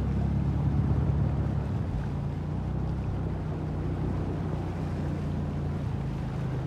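A small two-wheeler engine running steadily at low speed through shallow floodwater, with water sloshing and splashing around the wheels.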